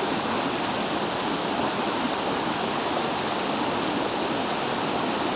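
Rushing water of a rocky river, a steady, even rush.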